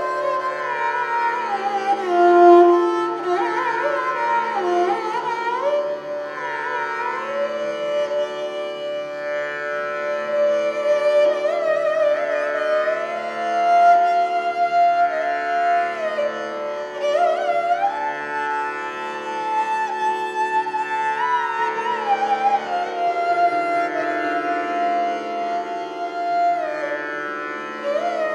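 Taus, the bowed peacock-bodied string instrument of Sikh devotional music, playing a slow, unaccompanied-by-drums melody in long held notes joined by smooth sliding glides, over a steady drone.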